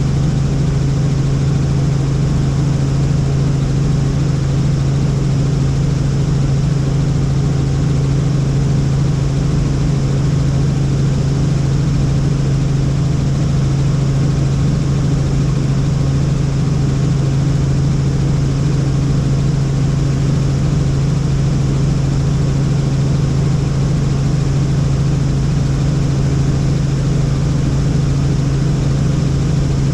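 Helicopter engine and rotors heard from on board in steady flight: a constant loud drone with a strong deep hum that holds the same pitch throughout.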